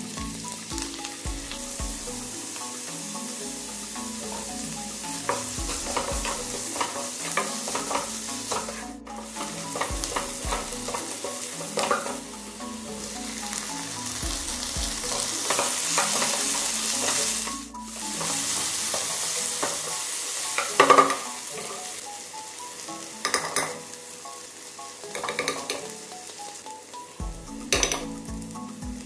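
Sliced shallots, tomato and spices sizzling in hot oil in a nonstick kadai while a spatula stirs and scrapes the pan. Several sharp knocks come in the second half.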